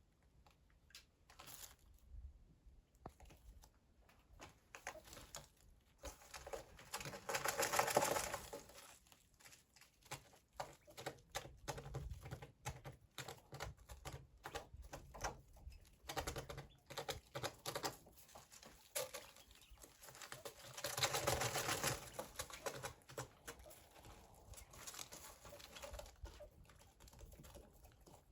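Coturnix quail pecking, a long run of quick, irregular tapping clicks like someone typing. Twice, about seven and twenty-one seconds in, a louder sound lasting about two seconds rises over the tapping.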